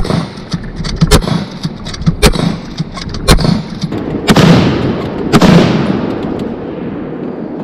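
Bolt-action rifle fired six times in quick succession, about one shot a second, with the bolt worked by hand between shots. Each report is followed by a long echo.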